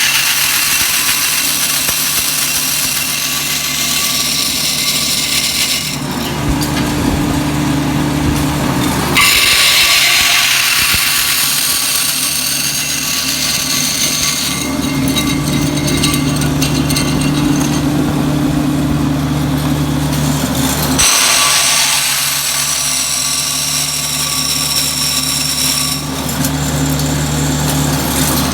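Automatic chopstick-making machine running, its motor-driven looped sanding belt grinding wooden blanks into chopsticks. The sound is steady and loud, and its tone shifts every few seconds as the work changes.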